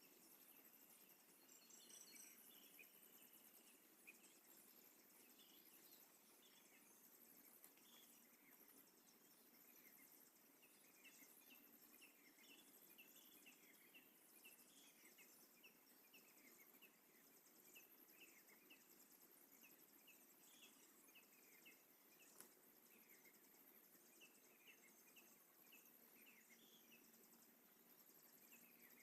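Near silence: faint forest ambience with a steady high insect buzz. From about ten seconds in, a small bird gives a long series of short chirps.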